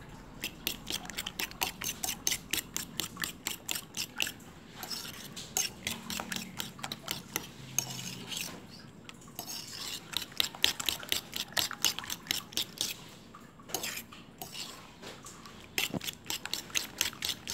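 A fork beating raw eggs with chopped vegetables in a bowl: quick repeated clicks and scrapes of the fork against the bowl, in several runs broken by brief pauses.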